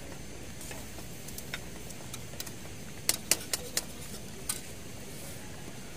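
Sharp clinks of cooking utensils knocking against a pot and plates, four in quick succession about three seconds in and one more a second later, over a steady background hiss.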